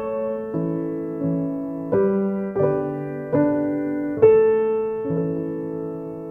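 Background music: soft piano playing slow chords, a new chord struck a little under once a second, each ringing out and fading.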